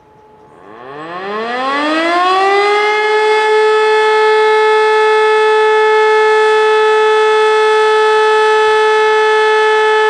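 E57 electric motor siren starting up: its tone climbs steeply in pitch for about two seconds, then holds a loud steady howl, sounding the fire-alarm signal. Before it starts, another siren can be heard faintly in the distance.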